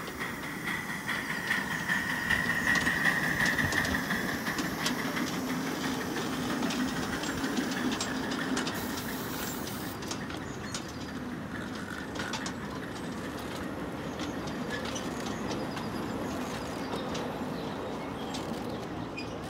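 Miniature ride-on steam locomotive and its passenger cars running past on a small-gauge track. A steam hiss is loudest a few seconds in and then fades, and the wheels click over the rail joints as the train moves away.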